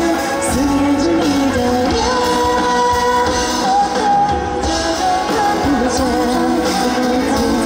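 A pop-rock song performed live by a band, with a lead vocalist singing the melody over steady accompaniment.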